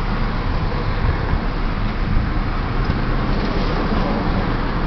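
Idling car heard from inside the cabin: a steady low rumble with a hiss over it.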